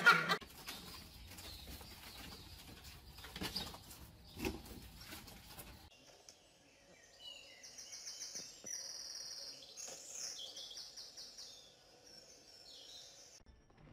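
A small pet's plastic exercise ball rolling and knocking across the floor, a low rumble with scattered clicks. After about six seconds this gives way to a run of thin, high chirping tones that last almost to the end.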